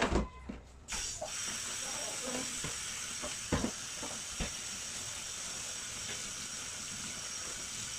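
Kitchen tap running steadily into a steel sink as a plastic colander and bowl are rinsed under it, starting about a second in, with a couple of light knocks of the plastic.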